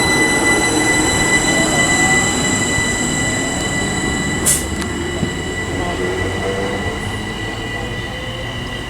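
A train running past on the main line, with steady high-pitched whines over the rumble and a sharp click about halfway through; the sound slowly fades toward the end.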